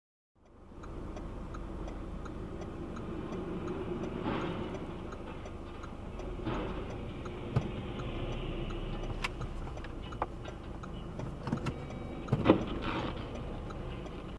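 Steady engine and road rumble inside a moving car, with a faint regular ticking about two times a second. Several sharp knocks sound through it, the loudest about twelve and a half seconds in.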